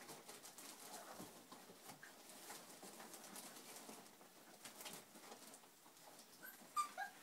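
Akita puppies scuffling and play-fighting, faint scratching and rustling of paws on the sheet-covered floor, with a few short high squeaks from the puppies near the end.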